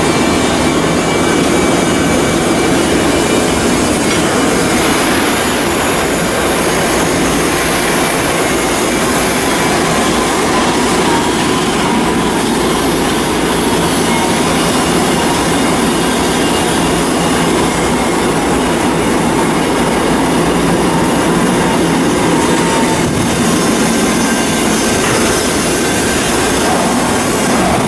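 Loud, steady mechanical noise of shipyard hull-building work, with a faint wavering high tone over it and no pauses.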